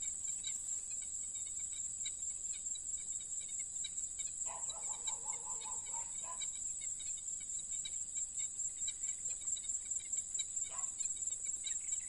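Crickets and other night insects trilling steadily at a high pitch. About four and a half seconds in, a short run of rapid animal calls lasts under two seconds.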